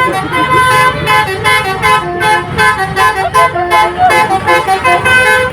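Bus "telolet" musical air horn (Basuri-type multi-tone horn) playing a fast tune of short stepped notes, several tones sounding together, pulsing several times a second.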